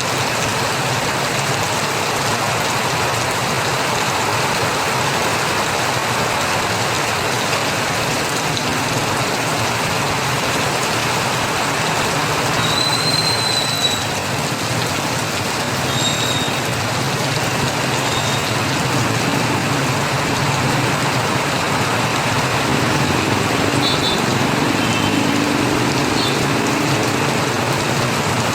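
Steady rain falling, an even continuous hiss. A few faint, short high chirps sound over it around the middle and later on.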